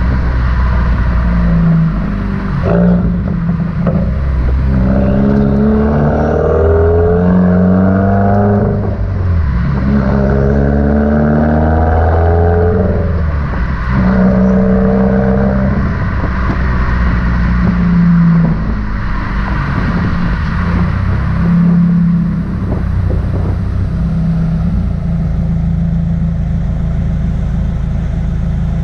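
2019 Subaru WRX's turbocharged 2.0-litre flat-four through a muffler-delete exhaust, accelerating hard: the revs climb three times, for about four, three and two seconds, each pull cut off sharply by a gear change. After that it runs at varying part throttle, with a few sharp crackles off throttle.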